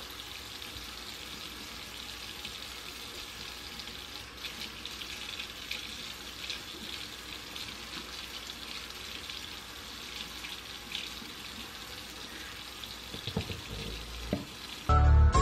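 Kitchen faucet running into a stainless-steel sink as wet hair is rinsed and worked under the stream: a steady hiss of falling, splashing water. Music cuts in loudly near the end.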